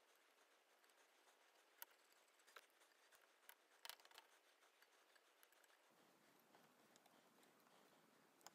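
Near silence: faint room hiss with a few small, scattered clicks and ticks from handling a feathered treble hook and thin wire; the clearest come about two and four seconds in.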